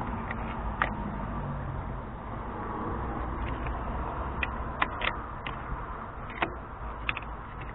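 Scattered sharp clicks and knocks from handling tools and parts under a car, about eight in all, over a steady low rumble.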